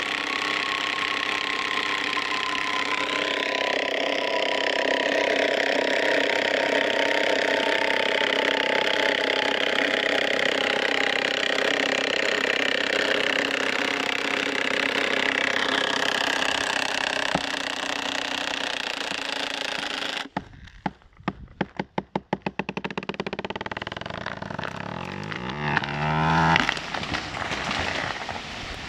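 A cordless drill drives a Forstreich TR30 mechanical felling wedge into the back cut of a big spruce, its motor labouring steadily with a pitch that slowly drops as the load builds. The motor stops suddenly about 20 seconds in. A run of sharp cracks follows as the hinge wood breaks, then a rising rush and cracking as the spruce starts to fall.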